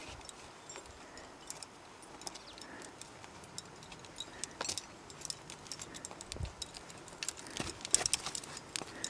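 Metal climbing gear racked on a harness, carabiners, quickdraws and protection, clinking and jingling with the climber's steps, in scattered light clicks that bunch up about eight seconds in. A single dull knock comes about six and a half seconds in.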